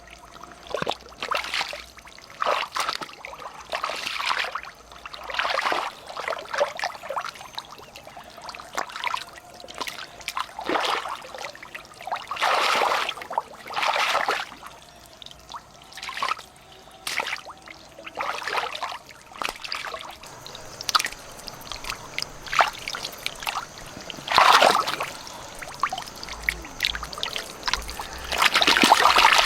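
Water splashing and pouring in irregular bursts every second or two, with trickling between them, a few louder splashes among them.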